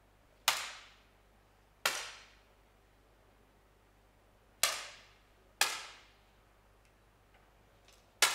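Five 10 m air pistol shots, each a sharp crack with a short echoing tail, fired at uneven intervals: two in the first two seconds, two close together in the middle, and one near the end.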